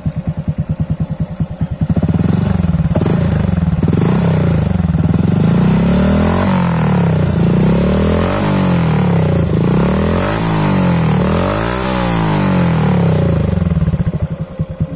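Honda Dash 125fi's single-cylinder four-stroke engine breathing through an aftermarket Espada E4 exhaust with an open silencer: it idles with an even pulsing beat, then from about two seconds in is revved up and let fall several times in a row. It settles back to idle near the end.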